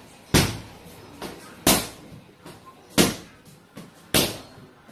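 Four kicks landing on an Everlast heavy bag, each a loud sharp slap-thud, evenly spaced a little over a second apart.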